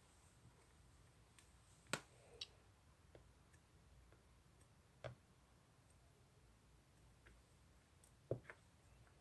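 Sticky whipped-cream-style slime being handled, giving a few sharp little clicks and pops: a pair about two seconds in, one at the middle and a pair near the end, with near silence between.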